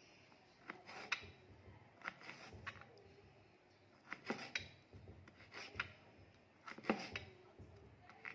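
Kitchen utensils and containers being handled during food preparation: about nine light, irregular clicks and knocks spread a second or so apart.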